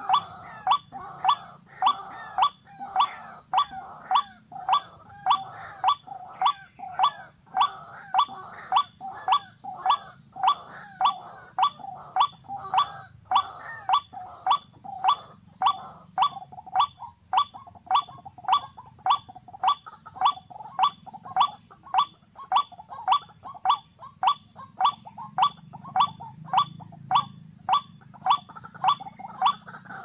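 White-breasted waterhen calling: one short, harsh call repeated very evenly, a little under two a second, over a steady high-pitched whine.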